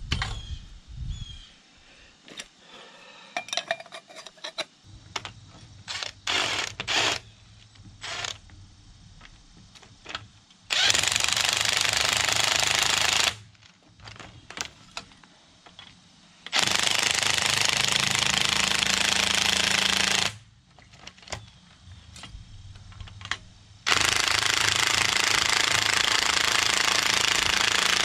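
Impact wrench running in three bursts of about three to four seconds each, with scattered clicks and clanks of tool handling between them, as the front coil spring is pulled down.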